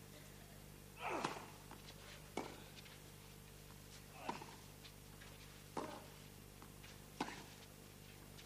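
Tennis racquets striking the ball back and forth in a baseline rally on a clay court: five sharp hits about a second and a half apart.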